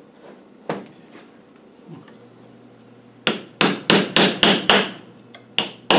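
Hammer tapping a thin dismantling tool between the gasket faces of a Land Rover LT77 gearbox housing to break the seal and split it: a couple of light knocks, then a quick run of about six sharp metal strikes, roughly three a second, and one more near the end.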